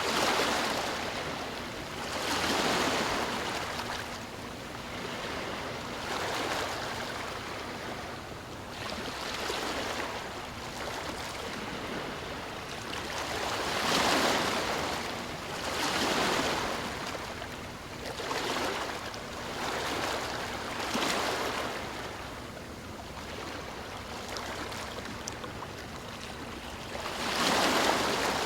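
Ocean waves surging and washing in one after another, a swell every few seconds, with the loudest surges about halfway through and near the end.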